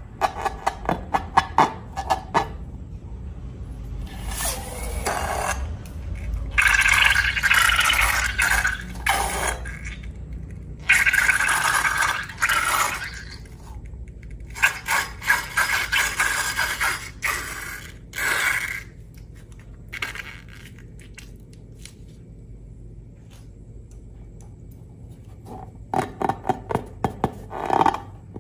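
Slime-making sounds: quick runs of sharp clicks at the start and near the end, and several scraping bursts a few seconds long in between.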